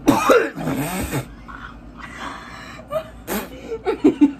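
Wordless vocal sounds from people: gliding, exclaiming voices in the first second or so, then scattered smaller vocalisations, with one short, sharp breathy burst a little over three seconds in.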